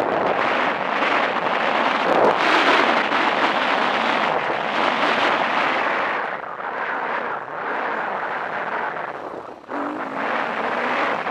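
KTM 350 EXC four-stroke dirt bike engine running as the bike rides along a dirt trail, with wind rushing over the camera microphone. Near the end the sound drops away briefly, then the engine picks up again with a wavering pitch.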